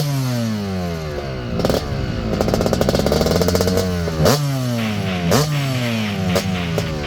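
Suzuki RM250 two-stroke single-cylinder motocross engine ridden hard. The revs snap sharply up several times, and the pitch falls away between each burst of throttle.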